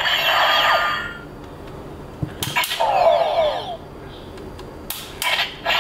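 Power Rangers Super Megaforce Legendary Morpher toy playing electronic sound effects through its small speaker. A run of sweeping synth tones stops about a second in. Plastic clicks from working the key and morpher come about two and a half and five seconds in, each followed by a short falling electronic sweep.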